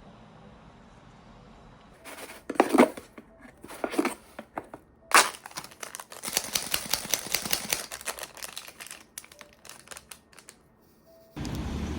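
Crinkling and rustling in irregular bursts, as of material being handled, densest in the middle and stopping abruptly just before the end.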